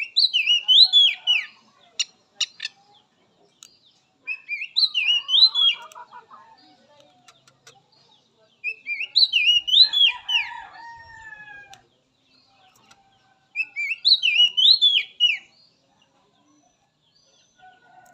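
Oriental magpie-robin (kacer) singing its typical wild-bird phrase, a quick run of rising and falling whistled notes, four times at even intervals of about four and a half seconds. A fainter, lower call sounds behind the song near the middle.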